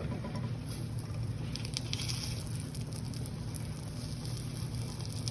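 Eggs and bologna frying in a pan, sizzling and crackling, busiest about two seconds in, over a steady low hum.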